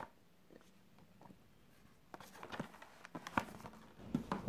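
Packets of baking supplies being handled: a few light clicks and short rustles, getting busier in the second half.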